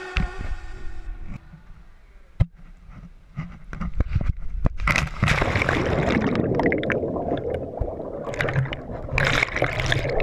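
Pool water churning and bubbling around a hand-held GoPro Hero 3 plunging underwater during a backflip: a few sharp knocks first, then from about halfway a dense, muffled underwater rush that surges and falls.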